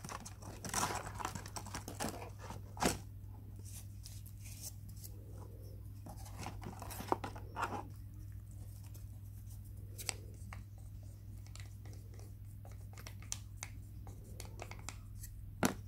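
Toast and a paperboard takeout box being handled with fingers and a wooden spoon: scattered light rustles, scrapes and clicks, a few sharper than the rest, over a steady low hum.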